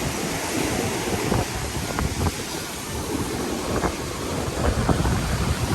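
Sea waves washing onto a stony shore, with wind buffeting the microphone.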